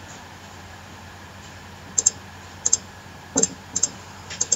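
Computer mouse buttons clicking: about five quick press-and-release double clicks in the second half, one of them heavier.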